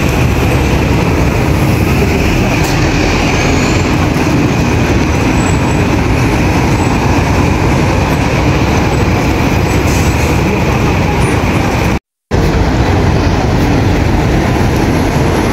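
Busy road traffic with double-decker buses passing close by: a steady, loud rumble and hiss, broken by a brief gap of silence about twelve seconds in.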